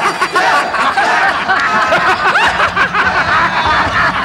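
A group of men laughing together, many voices overlapping in mocking cackles and chuckles. A low steady hum joins about two and a half seconds in.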